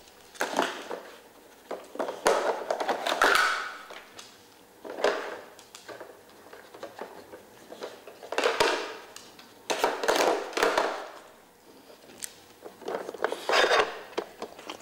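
Plastic lids and drawers of a Trixie Poker Box dog puzzle feeder clattering and scraping as a dog nudges and lifts them with its nose, in about six bursts of rattling and knocking several seconds apart.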